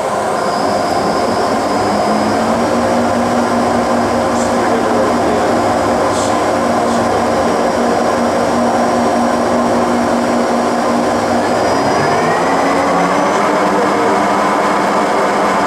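Vanguard CAK50186DI CNC lathe's geared headstock and spindle running steadily with a whine of several steady tones. About twelve seconds in, the pitch glides up and holds higher as the spindle speed is raised.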